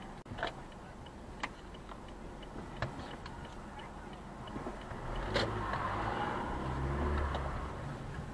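A car rolling slowly, heard from inside its cabin: a low engine and road rumble with faint regular ticking and a few sharp clicks. The rumble grows louder from about five seconds in, then eases near the end.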